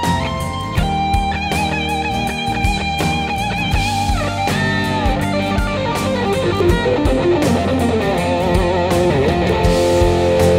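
Les Paul-style electric guitar playing a lead solo over a rock backing track with drums. It plays held notes with wide vibrato, bends about four to five seconds in, and quicker runs of notes near the end.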